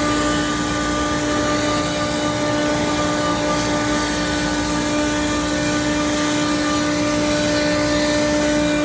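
Chiller unit running: a steady mechanical hum with a constant tone, over an even hiss.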